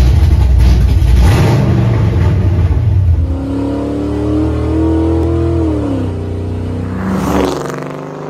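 Car engines revving and running in a quick string of clips. A loud, rough revving engine gives way about three seconds in to a steady engine hum at speed. The hum drops in pitch around six seconds in, and a short rush of noise near the end settles into a quieter engine hum.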